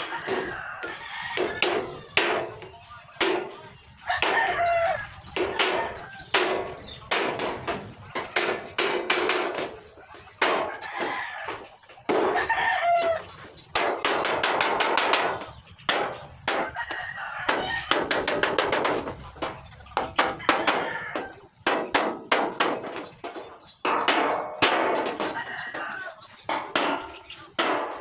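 A hammer striking a galvanized iron sheet along its edge, single blows and quick runs of taps on the thin metal. Chickens cluck and a rooster crows over the hammering.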